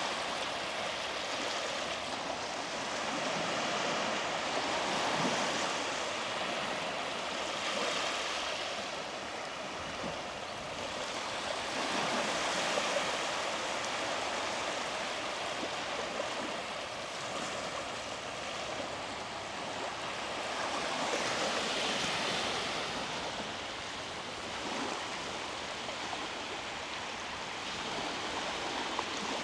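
Small sea waves breaking and washing up the beach, a steady rush that swells and fades every few seconds.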